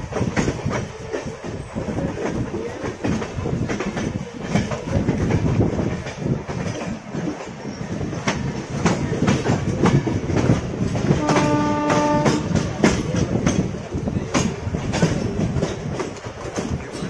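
Clickety-clack and rattle of steel wheels over rail joints as a train of passenger coaches runs past close alongside on the next track. About eleven seconds in, a train horn sounds once for about a second.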